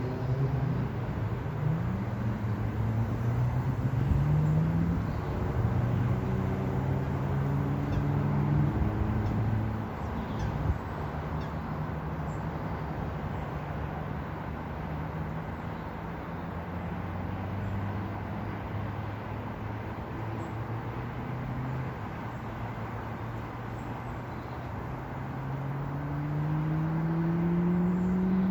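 A motor vehicle's engine running under way. Its pitch climbs and drops in steps over the first ten seconds, as with gear changes. It then runs steadier and lower, and rises again near the end as it speeds up.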